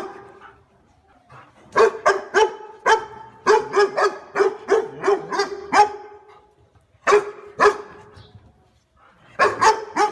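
A dog barking in runs of sharp, repeated barks: a pause at first, then a long run of about a dozen barks, two single barks, and another quick run near the end.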